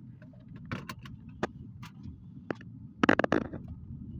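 Steady low rumble of a moving car heard from inside the cabin, with scattered sharp clicks and a louder cluster of clicks about three seconds in.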